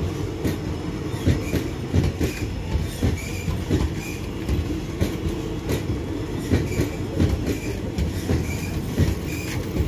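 Passenger train coaches of the Dharmavaram Express passing close by at speed: a steady low rumble with the wheels clattering over the rail joints and the crossing in a quick, uneven run of knocks, and short faint squeaks now and then.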